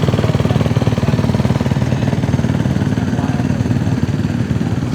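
Four-stroke supercross dirt bike engine running hard and steady, its rapid firing pulses blending into a continuous buzz.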